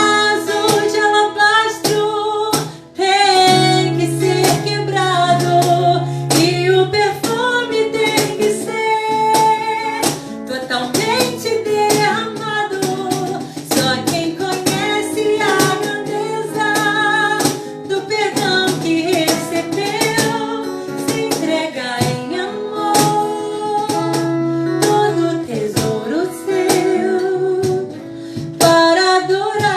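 Christian worship song: singing over a strummed acoustic guitar.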